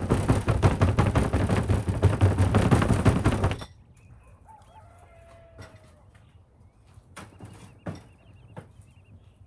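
A loud crackling noise that cuts off suddenly about three and a half seconds in, followed by faint chicken calls, among them a rooster crowing.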